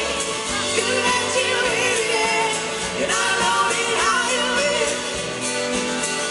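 A live pop-rock band playing, with a man and a woman singing a duet together over electric bass and drums.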